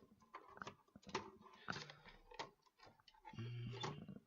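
Irregular light clicks and taps of computer hardware being handled and set into place in a PC case, with a short low hum about three seconds in.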